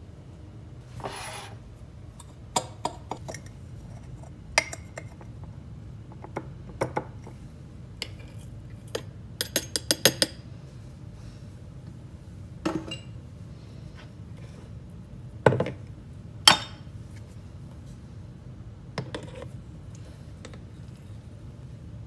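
Clinks and taps of a glass clip-top coffee jar and a metal espresso portafilter being handled while ground coffee goes into the portafilter basket. There is a quick run of small clicks about halfway through and two louder knocks a second apart later on.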